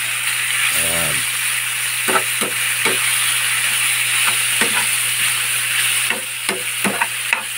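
Chunks of barilis fish dark meat with garlic and onion sizzling in hot oil in a frying pan, with a steady hiss. A metal spoon stirs through them and clinks and scrapes against the pan at irregular moments.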